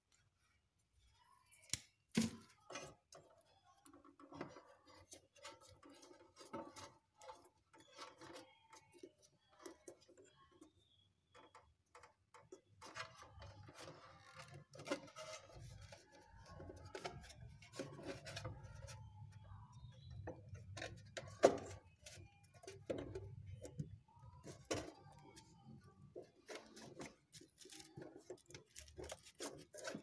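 Faint, irregular clicks and taps of hands handling and fitting a sheet-metal cover and wiring onto a refrigerator's compressor compartment, with a sharp click about two seconds in and the loudest one a little past the middle.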